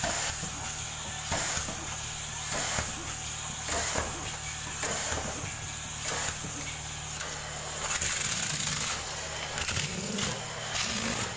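Upholstery extraction cleaner's vacuum motor running steadily with a high whine. Its wand's suction rushes and slurps in regular surges, about one stroke a second, as it is drawn across the wet sofa fabric.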